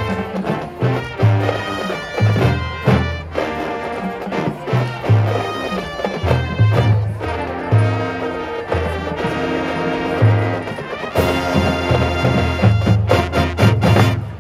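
Marching band playing: brass over pulsing low bass and drums, building to a loud held chord about eleven seconds in that cuts off sharply.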